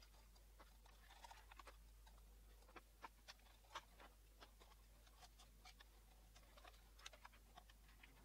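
Quiet handling of a projector's internal cover: scattered light clicks and small taps as it is worked loose by hand, a few slightly louder clicks in the middle and near the end, over a faint steady hum.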